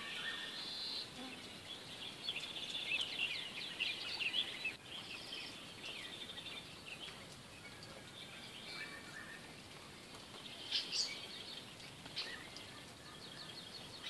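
Small birds chirping and twittering, many quick calls and trills overlapping, over a steady background hiss.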